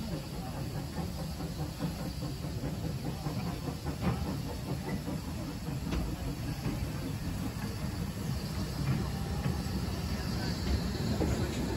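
Small steam tank locomotive slowly propelling a flat wagon and brake van, with a low rumble of wheels on rails, a few faint clicks and a steam hiss, growing louder as the train approaches.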